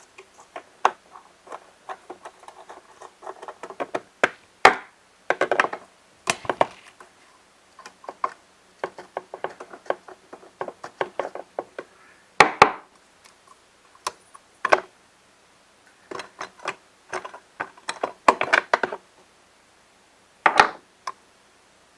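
Scattered clicks, knocks and clatter of hand tools and parts being handled as a Stihl BG85 leaf blower is taken apart to get at its carburetor, with a few sharper strikes.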